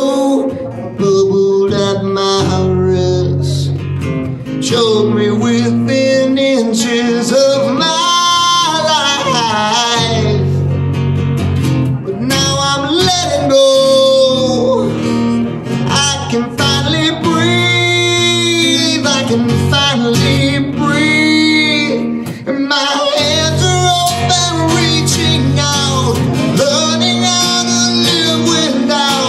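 Live solo song: a man singing into a microphone while strumming an acoustic-electric guitar.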